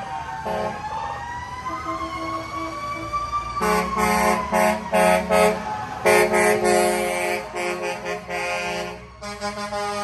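Vehicle siren winding up in a slow rising wail, then a long run of short truck air-horn blasts from about a third of the way in, stopping at the end, as the tow trucks drive past.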